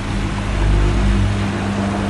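Rex Input RL12X front-loading washing machine running on its wool cycle after the second rinse drain: a steady motor and pump hum, joined at the start by a second, higher motor tone, with a low rumble that swells about a second in.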